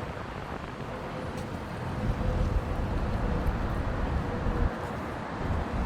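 Wind buffeting the microphone in uneven gusts, over a faint steady hum.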